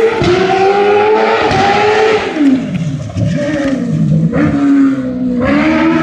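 Autocross race car's engine revving hard: its pitch holds high, falls steeply about halfway through, then climbs again, with two sudden drops and recoveries near the end as it changes gear.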